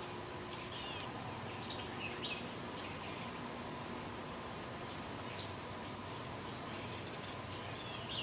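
Natural outdoor ambience: a steady high drone of insects with short, scattered bird chirps over a background hiss.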